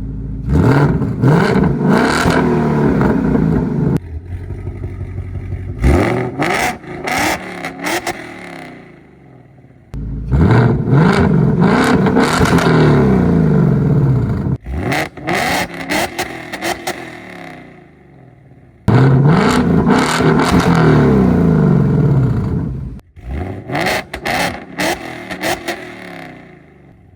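Ford Mustang GT's 5.0 Coyote V8 breathing through long-tube headers and an X-pipe, making three hard full-throttle pulls of about four seconds each. Each pull cuts off suddenly and is followed by a run of exhaust crackles and pops that fades out.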